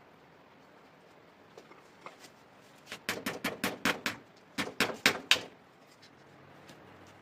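A quick run of about seven sharp knocks, then after a short pause about five more.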